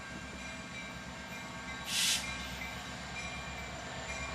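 Freight train led by EMD SD70-series diesel locomotives running on the line: a steady low diesel rumble, with a short hiss about two seconds in.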